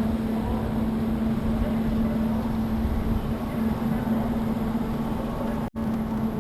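Wind buffeting the microphone, a steady low rumble, over a constant low hum from distant machinery. The sound drops out for an instant near the end.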